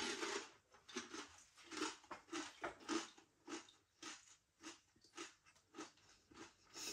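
Close-up chewing of a mouthful of Aldi Snackrite barbecue beef potato hoop crisps: a run of crisp crunches about two a second that grows fainter as the mouthful is chewed down. The crunch is slightly crispier and more shell-like than a Walkers Hula Hoop.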